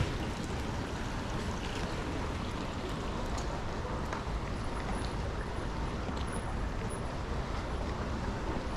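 Steady rushing outdoor background noise, with a few faint ticks.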